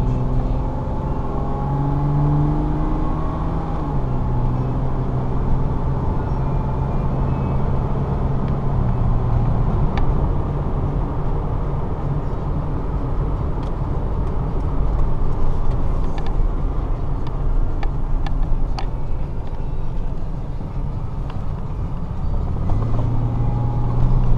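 2003 Toyota Tacoma pickup driving, heard from inside the cab: engine hum over steady tyre and road noise. The engine note steps up about two seconds in, then down again a couple of seconds later, and a few light clicks come past the middle.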